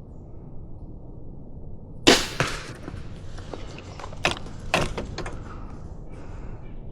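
A crossbow shot cracks sharply about two seconds in, followed by about three seconds of irregular snapping and crackling.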